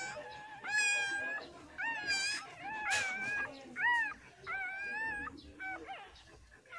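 Newborn puppies crying: a string of short, high-pitched squeals that rise then fall, about one or two a second.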